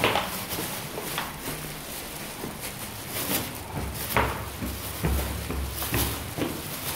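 Footsteps climbing tiled stairs, sharp steps roughly one a second, with a low rumble of phone handling near the end.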